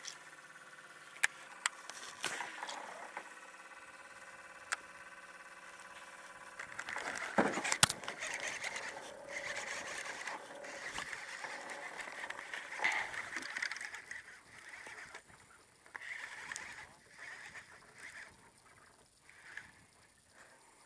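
Baitcasting reel being cranked on a retrieve, with sharp clicks of reel and rod handling. A steady hum runs from about two seconds in until about six and a half seconds.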